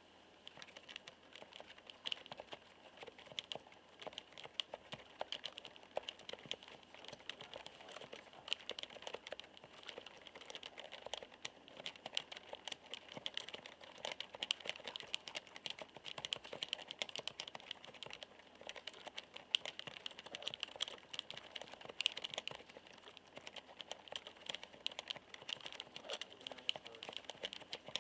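Steady, fast typing on a μTRON keyboard with Topre electrostatic capacitive (non-contact) key switches: a continuous patter of soft, rounded 'kotokoto' key strokes.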